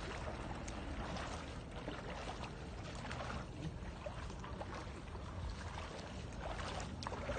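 Shallow river water running and trickling, with light splashing close by.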